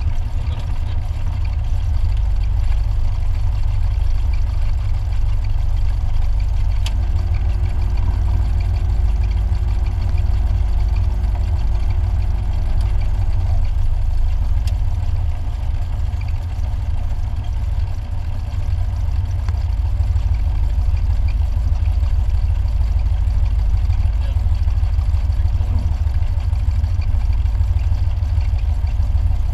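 Light aircraft's piston engine and propeller idling steadily, heard from inside the cockpit as a deep, even rumble.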